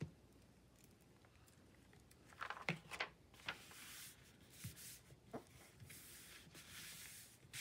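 Faint paper handling: a sheet of printed paper rustling as it is laid down and pressed flat by hand onto a freshly glued page, a few crackles followed by soft rubbing.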